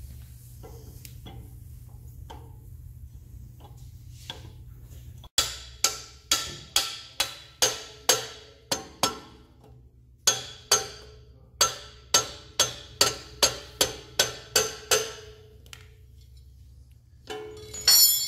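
A mallet beating repeatedly on a steel suspension bar and its axle bracket, about twenty quick blows at two to three a second with two short pauses, each ringing briefly: the bar is being driven into place on the axle bracket. A single louder metal clang with longer ringing comes near the end.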